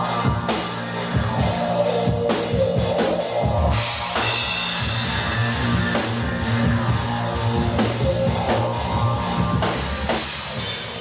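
Live rock band playing the instrumental part of a song, the drum kit keeping a steady beat under guitar and held notes.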